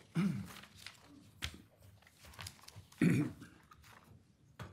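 Quiet meeting-room tone with two short murmured voice sounds, one just after the start and one about three seconds in, and a few light clicks.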